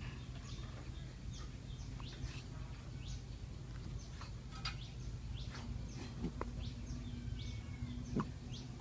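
Birds chirping in short, high notes, about two or three a second, over a steady low hum. A sharp tap comes near the end.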